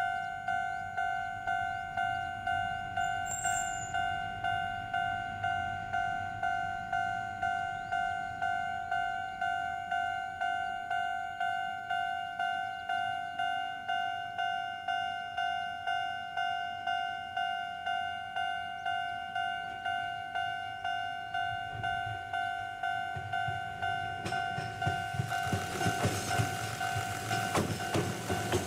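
Railway level crossing warning bell ringing, a steady electronic ding repeating about one and a half times a second, signalling an approaching train. About 24 seconds in, the Ohmi Railway electric train (set 101F) comes up and passes close by, its motors and wheels on the rails growing louder near the end.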